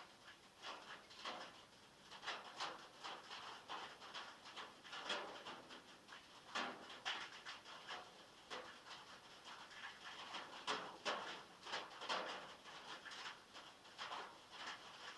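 Heavy rain falling on a metal roof, heard from inside a shed: a dense, irregular patter of drops with uneven swells.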